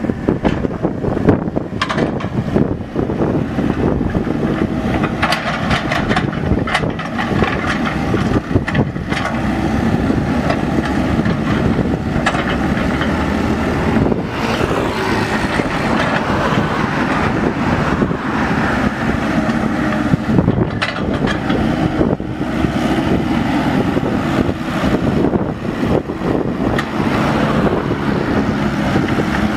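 Mini excavator engine running steadily under work, with occasional short knocks and clanks.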